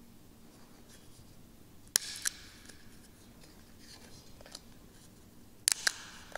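Altar vessels being handled: two pairs of sharp clicks with a brief ring, about two seconds in and again near the end, as the chalice and paten are touched and moved.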